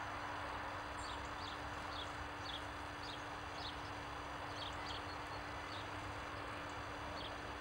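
Small songbirds calling: short high chirps about every half second, thinning out to a few scattered ones later, over a steady low hum and rumble.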